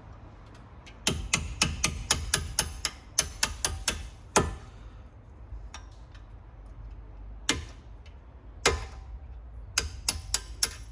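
Small hammer tapping on steel, driving the pad retaining pins out of a Brembo four-piston brake caliper: a quick run of about a dozen sharp ringing taps, two single taps, then another quick run near the end.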